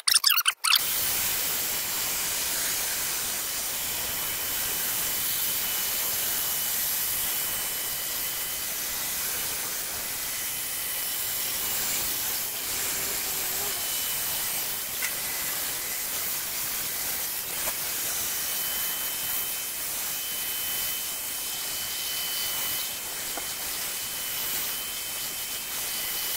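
Cordless drill spinning a steel wire brush over the wet, rusty steel top of a Blackstone griddle: a steady scrubbing hiss with a faint high whine, scouring the loosened rust off the surface.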